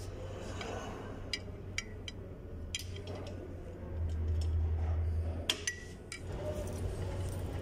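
Suzuki APV rear drum-brake shoes and their steel springs clinking against each other and the backing plate as they are handled and lifted off: about half a dozen sharp metallic clinks, some ringing briefly. A low steady hum runs underneath, louder between about four and five and a half seconds in.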